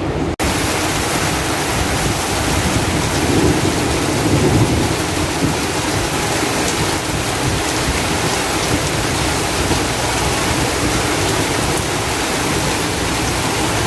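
Heavy tropical downpour: rain pouring steadily and loudly, with a brief break in the sound just after the start.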